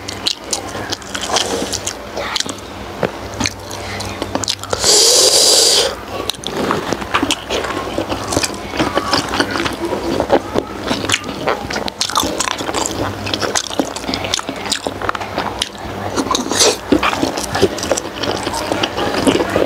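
Close-up chewing of soft steamed pig skin: wet mouth clicks, smacking and squelching. About five seconds in there is a loud hiss lasting about a second.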